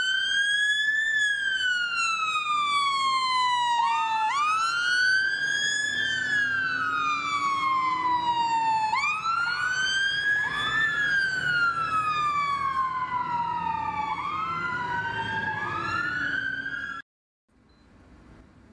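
Several fire engine sirens wailing together, each rising and falling slowly over a few seconds, the sound of appliances responding to an emergency call. They cut off suddenly near the end.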